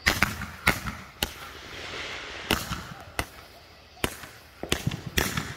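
Fireworks going off: about eight sharp bangs, unevenly spaced, with a hiss between them.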